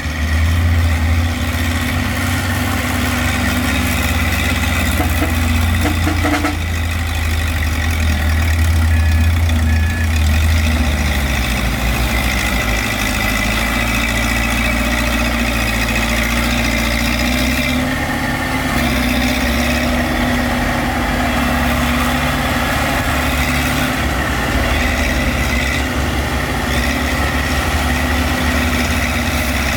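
A heavy diesel engine of earthmoving machinery running steadily close by, its deep note shifting about a third of the way in and again a little past halfway.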